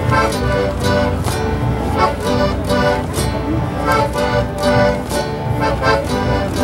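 Andean Aymara folk music for the Pachallampe dance: a pitched melody over a regular percussive beat.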